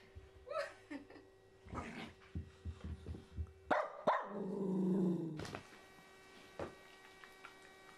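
Small dogs barking and growling in rough play with a young goat, with scattered short calls early on and a longer, louder stretch about halfway through.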